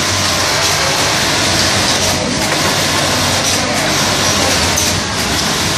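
Steady din of a garment factory floor, with many industrial sewing machines running at once.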